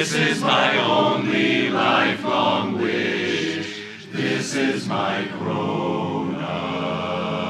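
Barbershop chorus singing a cappella in close harmony. About five seconds in, the voices settle onto a long held chord.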